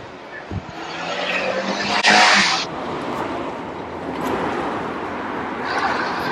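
A road vehicle passing close by, its noise building over the first two seconds. A short, loud hiss about two seconds in, then a steady rush with another swell near the end.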